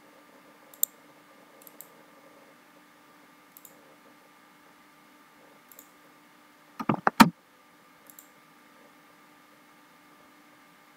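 Clicks of a computer mouse and keys picked up by a desk microphone: a few scattered single clicks, and a quick cluster of louder clicks about seven seconds in, over a faint steady electrical hum.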